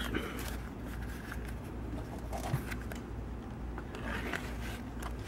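Leather pancake holster being handled and turned over in the hands: faint rubbing and scraping of the leather, with a small knock about two and a half seconds in.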